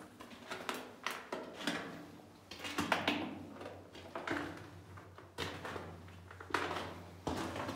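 Footsteps crunching and scuffing on loose rock inside a mine tunnel, at an uneven walking pace, each step fading quickly in the rock-walled passage.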